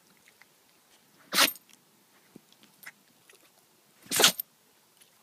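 Chihuahua sneezing twice, two short sharp sneezes about three seconds apart, with a few faint clicks between them.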